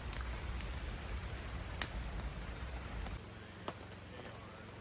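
Light rain pattering, with scattered drops ticking sharply on a nearby surface. A low rumble under it cuts off suddenly about three seconds in.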